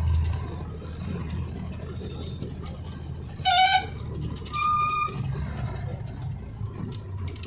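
Vehicle horn sounding two short toots about a second apart, the first louder and lower-pitched, over the steady low rumble of a vehicle's engine and tyres on the road.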